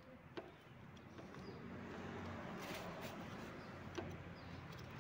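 Faint handling noise of a motorcycle's plastic fuse holder and wiring harness being worked by hand: a small click about half a second in and another near the end, over soft rustling.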